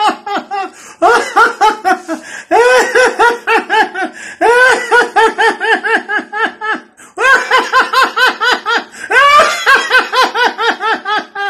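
A man laughing heartily in repeated bouts of rapid 'ha-ha-ha', about five pulses a second. Each bout starts loud and trails off, and short pauses for breath fall between them. It is deliberate laughter-yoga laughter.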